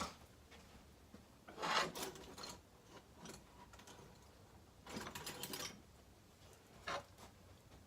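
Scattered rubbing and scraping handling noises: a longer scrape about one and a half seconds in, another about five seconds in, and a short one near the end.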